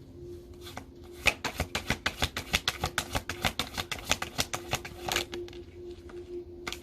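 A deck of oracle cards being shuffled by hand: a quick run of card flicks, about six a second, starting about a second in and lasting about four seconds.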